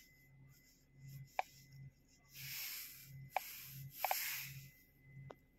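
Short clicks of taps on a diagnostic tablet's touchscreen, about five of them including a quick double, with two brief rustling swishes of a hand moving over the device. A faint low hum pulses about twice a second underneath.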